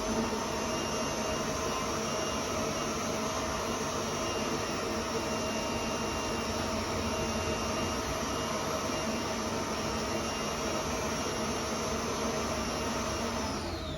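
Stand mixer with a whisk attachment running steadily, whipping set white chocolate mousse to loosen it. The motor whine winds down near the end as the mixer is switched off.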